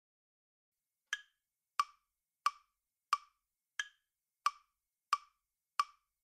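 Metronome click-track count-in: eight evenly spaced, wood-block-like clicks, about three every two seconds, counting in a drum piece before the backing music starts.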